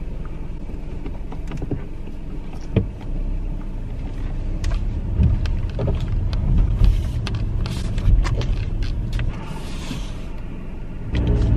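Car cabin: the car's engine and tyre rumble as it pulls away from the pump and drives off. There are a few light clicks, and a short knock about three seconds in.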